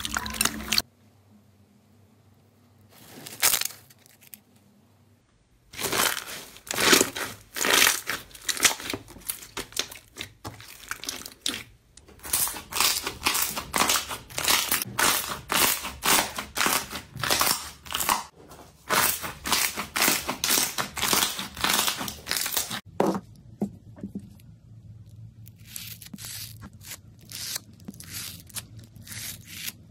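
Hands pressing and kneading slime in a glass bowl, a long run of squishing, crackling pops, two or three a second. Near the end, scissors snip through a pink foam sponge, more softly.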